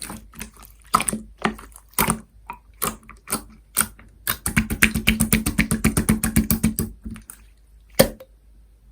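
Sky-blue soda slime being pressed and squished by fingers, making sharp clicky pops: scattered single pops, then a fast run of about eight clicks a second for two or three seconds, and one loud pop near the end.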